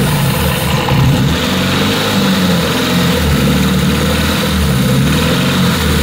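Nissan 240SX four-cylinder engine running with its valve cover off, revved with a swell about a second in and then wavering in speed. The engine is being run to find a rattle that the owner suspects is rod knock and a friend takes for timing chain slap.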